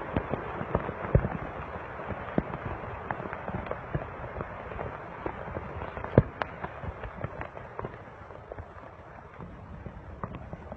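Volcán de Fuego erupting: a steady low noise full of irregular crackles and pops, the sharpest about six seconds in.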